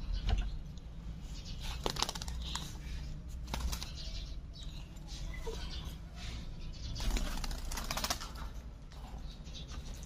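Plum-headed parakeet flapping its wings in several short bursts of rapid fluttering strokes, the longest and densest about seven seconds in.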